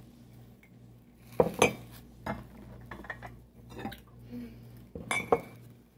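Dishware being handled: a few short knocks and clinks as lemon-print cups are set down and moved against each other, the sharpest about one and a half seconds in and again near five seconds.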